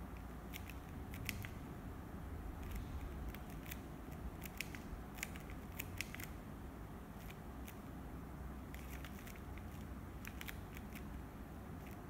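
TV remote control buttons being pressed: irregular light clicks, some in quick pairs or short runs, over a low steady hum.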